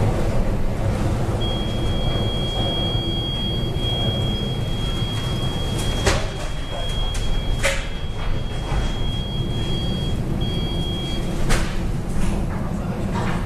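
Typhoon wind and heavy seas against a cargo ship, heard from its bridge: a dense, steady rumbling roar of wind and water. A steady high-pitched whistling tone runs through most of it, and a few sharp knocks sound around the middle and near the end.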